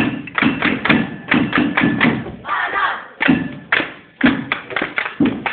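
Crowd cheering while cans and plastic bottles are shaken as noisemakers, giving a run of sharp, irregular knocks two or three times a second.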